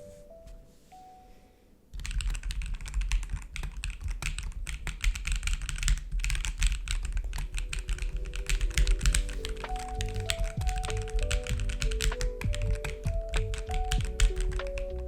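Fast, continuous typing on an ASUS Jelly75 mechanical keyboard, a dense patter of keystrokes that starts about two seconds in.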